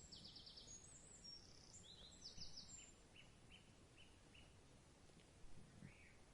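Faint birds chirping over a quiet background hiss: quick high trills at the start and again about two seconds in, then a run of short chirps at about three a second.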